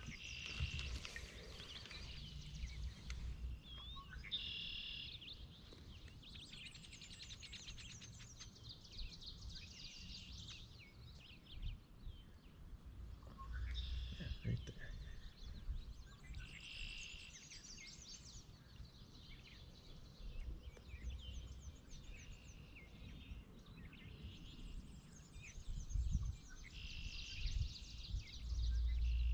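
Wild songbirds singing in the morning, bursts of quick chirping phrases every few seconds, over a low rumble underneath.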